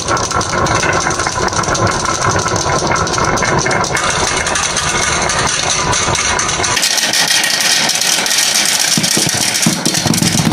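Many glass marbles rolling and clattering down a wooden wave-shaped slope, a dense continuous rattle with a low rumble under it. About seven seconds in the rumble drops away and the sound turns to brighter clicking as marbles knock together and pour off the end of the track into a toy truck's bed.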